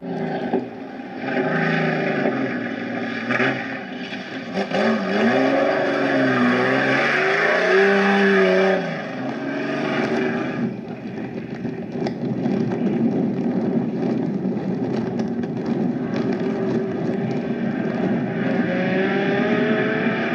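Turismo Carretera race-car engines running, starting abruptly; about four seconds in, an engine revs with its pitch swinging up and down several times, then settles into steady engine noise.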